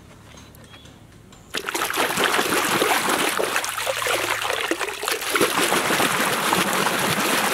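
Running water splashing and gushing over a plastic toy dump truck as it is rinsed and rubbed clean by hand. It starts suddenly about a second and a half in.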